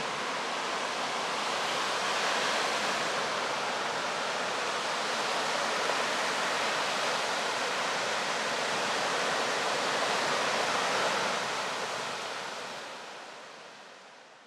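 Steady rushing wash of sea surf, which fades away over the last few seconds.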